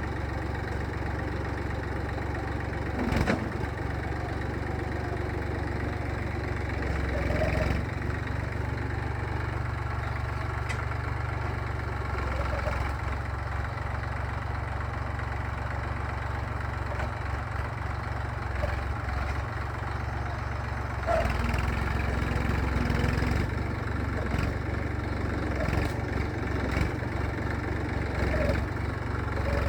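Massey Ferguson tractor engine running steadily, with a sharp click about three seconds in and a louder stretch for a couple of seconds about twenty-one seconds in.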